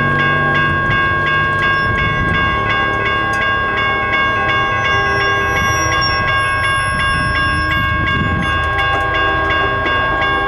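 Railroad grade-crossing bell ringing steadily at about three strikes a second, the warning that a train is approaching. Under it, a low rumble and a distant locomotive horn come from the oncoming train.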